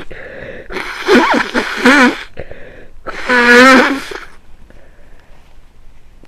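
A person with a cold sneezing in a fit: two sharp bursts about one and two seconds in, then a longer, voiced sneeze just after three seconds.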